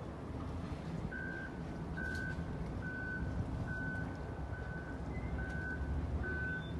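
An electronic warning beeper sounding one high tone over and over, a little more than once a second, starting about a second in, over a steady low engine rumble.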